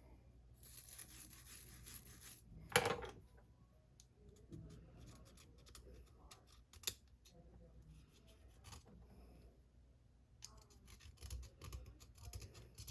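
Faint scrubbing and scratching of a small brush against the corroded drag washers of a Penn fishing reel, broken by a few sharp clicks of metal parts or tools. The loudest click comes about three seconds in, and a dense run of scratching starts near the end.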